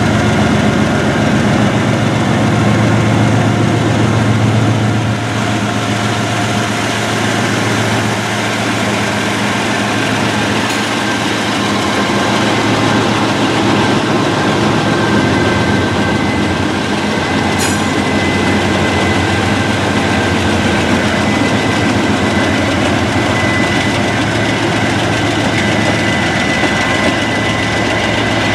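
Norfolk Southern diesel-electric freight locomotives passing close by, their engines running with a steady low drone over the rumble of the train. A faint, steady high whine joins in from about halfway through.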